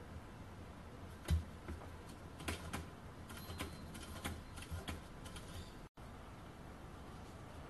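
Small metal kit parts and a hand tool clicking and tapping as a model steam engine is assembled by hand: one sharper click about a second in, then a scattered run of light ticks, over a faint low hum.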